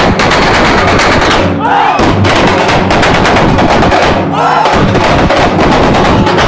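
A loud, unbroken barrage of rapid percussive strikes, with two brief rising-and-falling tones cutting through, about two and four and a half seconds in.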